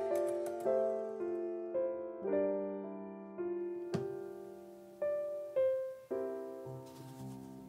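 Background piano music: a gentle tune of single notes and soft chords, each note ringing and fading.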